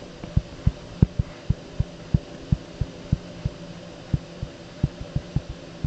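Pen stylus tapping and pressing on a drawing tablet during handwriting: a string of irregular dull taps, about three a second, over a steady low electrical hum.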